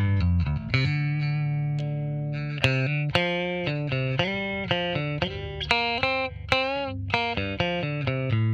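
Squier Bass VI, a six-string baritone bass guitar, played clean through a Line 6 Helix amp modeller with an Ampeg 4x10 cabinet model. It plays a picked melodic line of single notes: low notes first, then a note held for about a second and a half, then quicker notes higher up, with a wavering bent note about six and a half seconds in.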